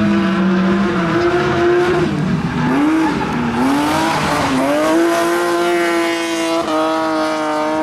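BMW E36 race car's engine at high revs on a dirt track: the note falls away about a second in, dips twice as the throttle is lifted through a corner, then climbs back and holds high. A hiss of the tyres sliding on loose dirt runs through the middle.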